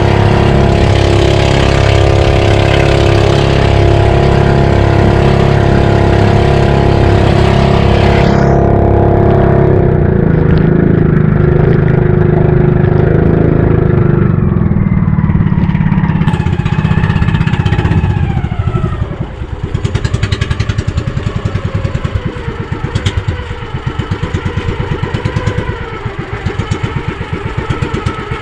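Engine of a motorized outrigger boat running at speed, with the hiss of spray and wind over it. About eight seconds in, the hiss stops. Past the halfway mark the engine note falls as the boat slows, and it settles into a quieter, lower, pulsing run.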